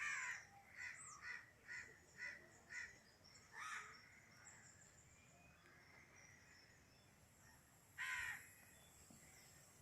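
Crows cawing: a quick run of about six caws in the first three seconds, then one more caw after about three and a half seconds and another after about eight seconds.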